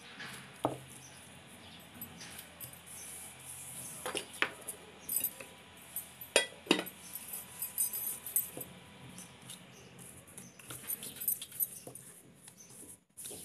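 Hands working flour-dusted dough balls on a wooden tabletop, with a few sharp taps and knocks in quick pairs, the loudest about six and a half seconds in. Near the end comes the soft rubbing of a rolling pin rolling out the dough.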